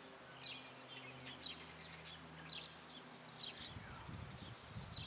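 Small birds chirping over and over, short high-pitched calls coming about once or twice a second. A low, irregular rumble sets in about two-thirds of the way through.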